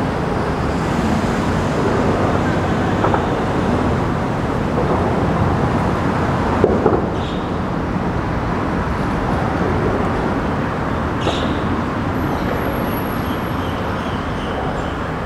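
Steady rumble of distant road traffic, with a few faint short chirps over it.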